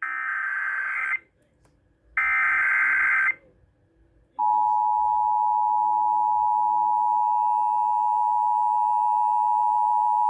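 Emergency Alert System tones on a radio broadcast for a tornado warning. Two screechy digital header bursts of about a second each, then from about four and a half seconds in the steady two-tone attention signal, which announces the warning message.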